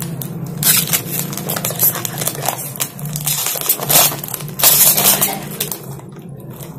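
Plastic snack bag crinkling and crackling as it is torn open by hand, a quick run of loud crinkles that grows quieter near the end.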